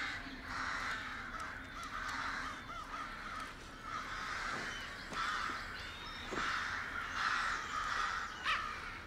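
Many crows cawing, their harsh calls repeating and overlapping without a break.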